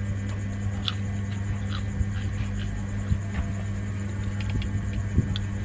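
Steady low electrical mains hum, with scattered faint clicks and taps of someone eating from a bowl.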